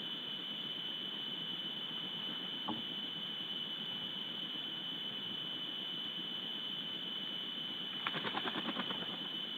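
Steady high-pitched whine over a constant hiss, the electronic noise of a webcam's microphone feed. A single click about two and a half seconds in, and a quick rattle of about ten ticks near the end.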